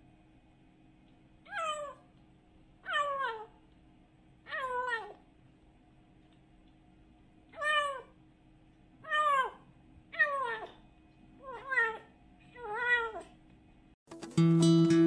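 Young kitten meowing eight times, each call short and falling in pitch, a second or more apart. Near the end, louder acoustic guitar music comes in.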